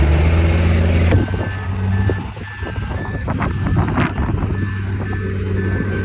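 A heavy construction vehicle's reversing alarm beeping in a steady repeating pattern from about a second in, over the low, steady running of a diesel engine. The engine is loudest at first and eases as the beeping begins, and a few scattered knocks come through midway.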